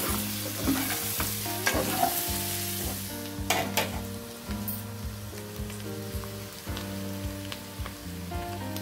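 Chicken pieces sizzling in a nonstick pan while a spatula stirs them, with scattered scrapes and knocks of the spatula against the pan.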